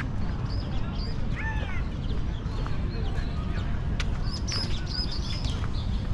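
Small birds chirping and calling, short high notes and a few bending calls scattered throughout, over a steady low rumble, with a few sharp clicks.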